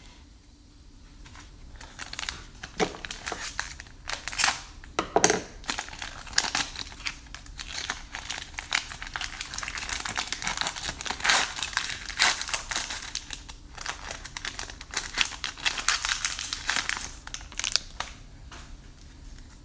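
Plastic wrapper of a 2021 Score football card pack being torn open and crinkled by hand. It starts about two seconds in as a run of crackling rustles with several sharper crackles, and eases off near the end as the cards come out.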